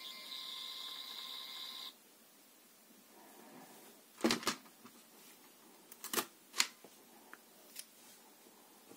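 Phomemo P12 thermal label printer whining steadily as its motor feeds the label through the print head, cutting off about two seconds in. Then come two sharp clicks from the printer's top being pressed to cut the label, and a few lighter clicks as the label is pulled out.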